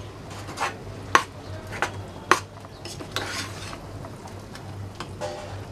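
A spoon stirring chicken curry in a pan. It knocks against the pan several times, about every half second, and makes a longer scrape about three seconds in.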